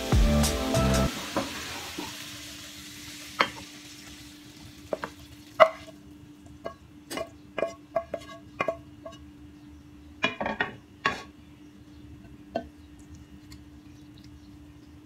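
Freshly cooked stir-fry sizzling softly and fading, then a series of sharp clinks and knocks as the frying pan and a wooden spatula strike the glass serving dish while the food is tipped out and stirred. Background music cuts out about a second in, and a faint steady hum runs underneath.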